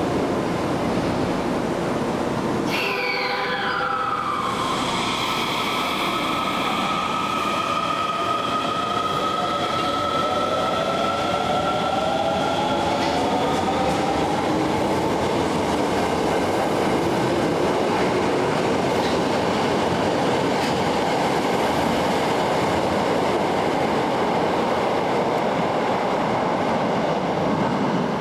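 Kita-Osaka Kyuko 8000 series subway train, with Toshiba IGBT-VVVF inverter control, pulling away from the platform. About three seconds in, the inverter's high whine starts, falls in pitch and then holds steady, while a lower motor tone climbs as the train gathers speed. It then gives way to steady wheel-on-rail running noise.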